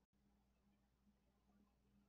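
Near silence: faint steady hum of room tone, cutting out completely for an instant near the start.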